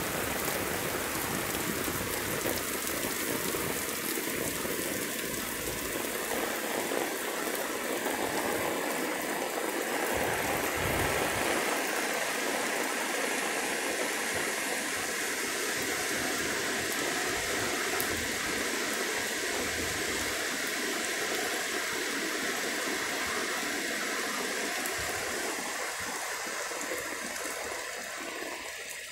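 Heavy rain pouring in a steady hiss, mixed with the rushing of a rain-swollen stream in flood. The sound eases a little near the end.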